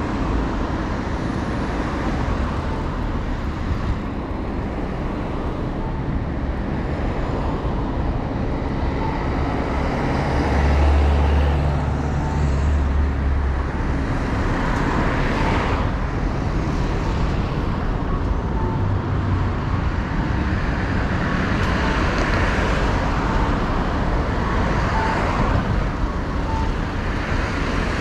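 Road traffic passing along a city street, a steady wash of tyre and engine noise. A heavier vehicle's low rumble swells and fades near the middle.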